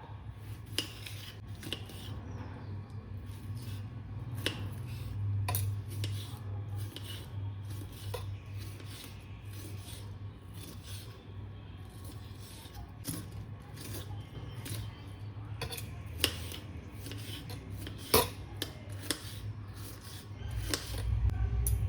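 Kitchen utensils handled while cooking: irregular scattered clinks, taps and scrapes, with one sharper clack toward the end. A steady low hum runs beneath them.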